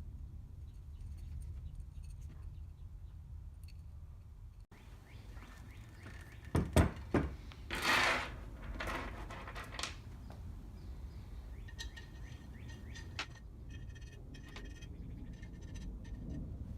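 Metal parts and hand tools clinking and knocking during hand work, with a few louder knocks and a brief scrape or rustle midway and lighter clinks and rattles after, over a steady low hum.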